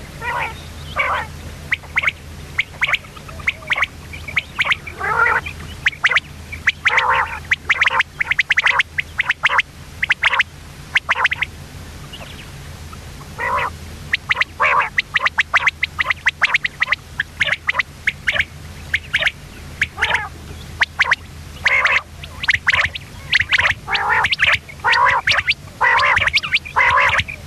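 Common quail calling: clusters of short, sharp notes repeated in quick series, with a brief pause about halfway through. A steady low hum runs underneath.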